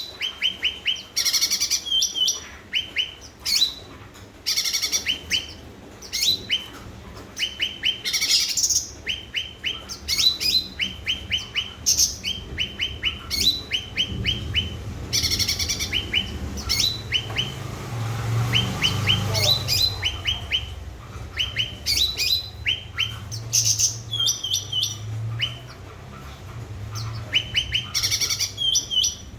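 A cucak ranting songbird singing vigorously ('gacor'): quick runs of short, high chirps, repeated over and over with short gaps between them. A low rumble sits underneath through the middle stretch.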